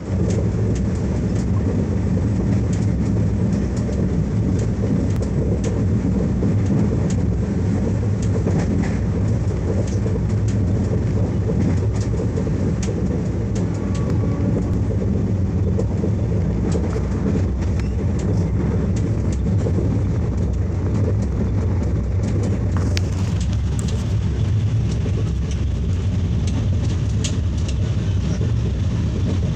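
Moving passenger train heard from inside an air-conditioned coach: a steady low rumble of wheels on the rails with scattered clicks and rattles. About three quarters of the way through the sound turns brighter and more rattly as the train runs onto a river bridge.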